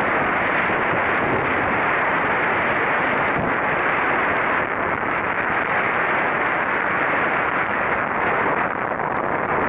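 Strong wind buffeting the camera's microphone: a steady, loud rush of noise with no breaks.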